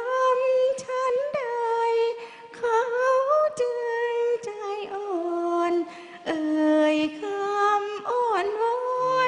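A woman singing a Thai song in long held notes that slide and bend in pitch. She is accompanied by a Thai classical ensemble whose struck instruments, a ranat ek xylophone and a khim dulcimer, add sharp accents.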